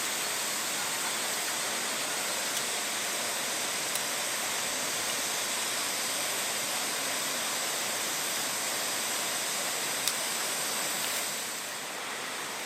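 Steady hissing rush of a camping gas stove burner heating a pot of boiling ramen. It drops a little in level near the end, just after a faint click.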